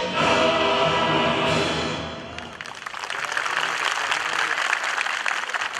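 Choral music with orchestral backing ends about two seconds in, and a crowd breaks into applause.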